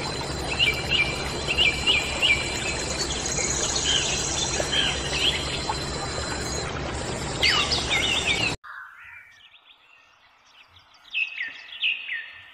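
A small home-made water pump runs with a steady low hum and rush of noise while birds chirp repeatedly over it. The pump noise cuts off suddenly about eight and a half seconds in, leaving only the bird chirps.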